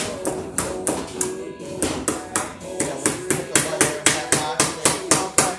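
Rapid, even hammer strikes, about four a second and quickening slightly, stopping near the end, as in driving cable staples or nails during electrical rough-in. Music plays underneath.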